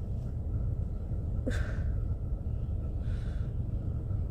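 Wind buffeting the microphone as a steady low rumble, with a short gasp about one and a half seconds in and a softer breath near three seconds.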